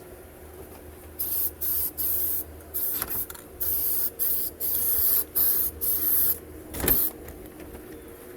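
Compressed-air gun hissing in about a dozen short bursts as the trigger is pulled and released, with a single thump near the end.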